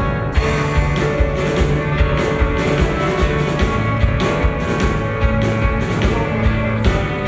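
Live rock band playing, with a drum kit keeping a steady beat under electric guitar and bass.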